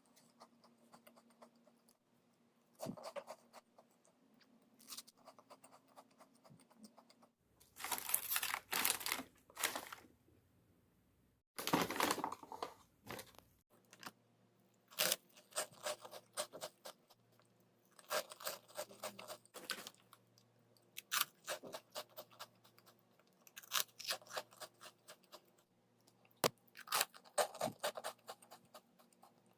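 Plastic packaging crinkling and tearing in two bursts a few seconds apart, then crunchy food being bitten and chewed close to the microphone in short irregular crunches.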